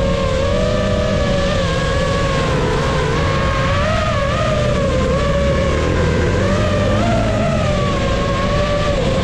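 FPV racing drone's motors and propellers whining, the pitch wavering up and down as the throttle changes, over a steady low rumble.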